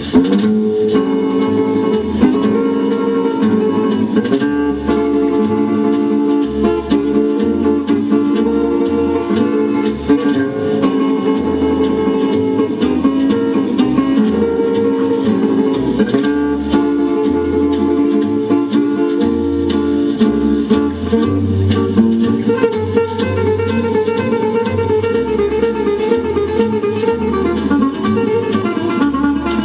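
Music led by a plucked acoustic guitar in a flamenco style, with a steadily repeating bass line.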